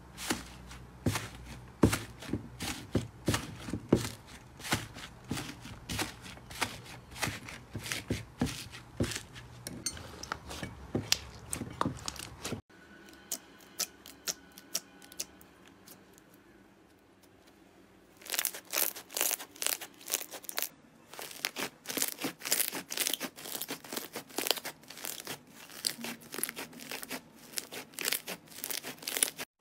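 Hands pressing and kneading slime, with dense crackling and popping. A crunchy foam slime crackles first. After a sudden break about twelve seconds in, a clear jelly slime gives a quieter, softer stretch of sounds. Crackling returns about eighteen seconds in as a fluffy slime is kneaded.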